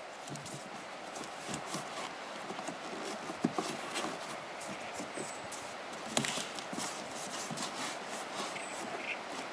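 Handling noise from a foam hip pad being pushed in under a kayak's padded seat: fabric and foam rustling, with scattered soft knocks. The two louder knocks come about three and a half seconds and about six seconds in, over a steady background hiss.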